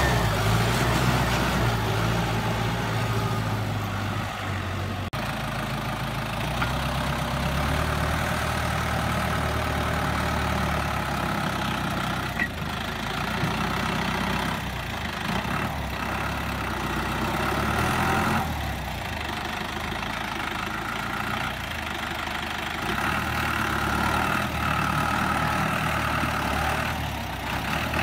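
Tümosan 8085 tractor's diesel engine running as it pulls a trailer through mud, its engine speed shifting a few times.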